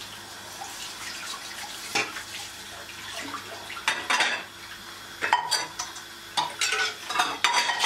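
Dishes and pots clinking and clattering at a kitchen sink while they are rinsed under a running tap, with a run of sharp knocks near the end.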